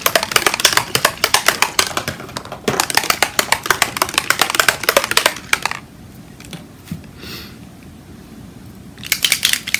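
Rapid clicking and rattling of small plastic alcohol-ink bottles being handled and sorted, in two runs of a few seconds each; it stops about six seconds in and starts again near the end.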